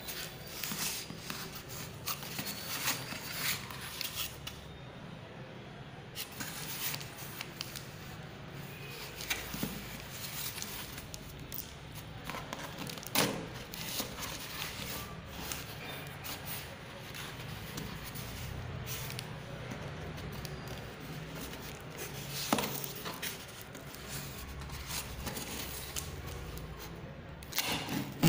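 A small blade scraping and slitting through packing tape and cardboard on a parcel, in irregular scratching strokes, with the rustle and a few sharp knocks of the box being handled and turned.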